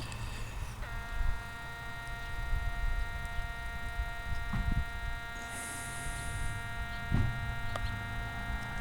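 Panasonic R-111 transistor radio squealing: a steady high-pitched whine that starts suddenly about a second in and holds, over a low hum.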